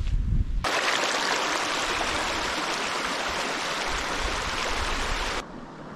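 Shallow stream rushing over stones, an even, steady splashing hiss. It cuts in abruptly about half a second in and stops suddenly near the end.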